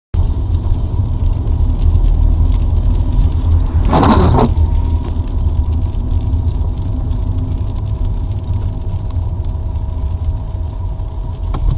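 A car's engine and tyre rumble on a wet road, heard from inside the cabin: a steady low drone, with a short hissing burst about four seconds in.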